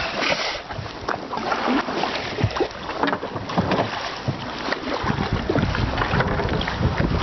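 Kayak paddling: irregular splashes and knocks of the paddle in the water. Wind buffets the microphone over the last couple of seconds.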